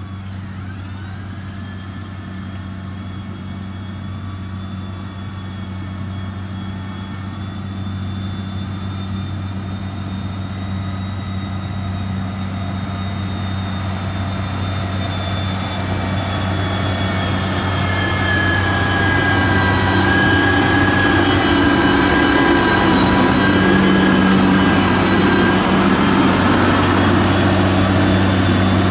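Heavy diesel engine of a road-construction machine running steadily, with a high whine over the low engine note. It grows steadily louder.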